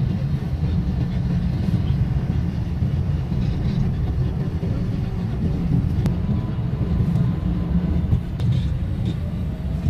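A car driving along a city street, heard from inside the car: a steady low rumble of road and engine noise.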